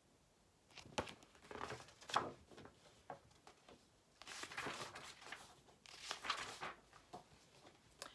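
Paper pages of a picture book being handled and turned: rustling and crinkling in a string of short swishes with a few sharp clicks, then two longer page-turning swishes, after a quiet first second.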